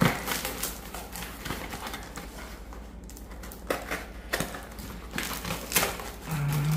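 Cardboard box and packaging being opened by hand: scattered sharp clicks and knocks with crinkling and rustling.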